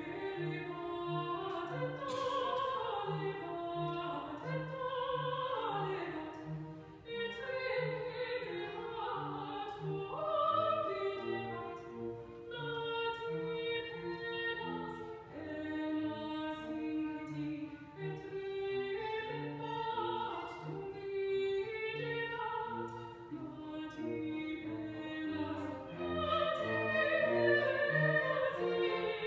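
A young woman singing a classical-style solo over instrumental accompaniment, whose low notes repeat at an even pace beneath the voice.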